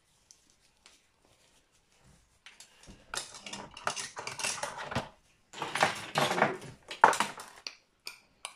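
Kitchen utensils clattering and knocking against plastic organizer trays in a drawer as they are handled and set in place, in irregular bursts starting about two seconds in and loudest near the end.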